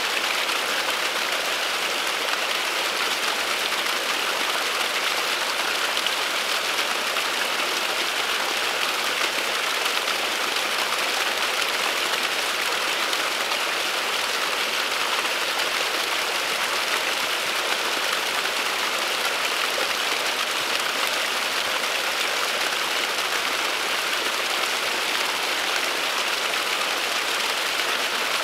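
Small waterfall trickling and splashing down a mossy rock bank, a steady, even rush of falling water.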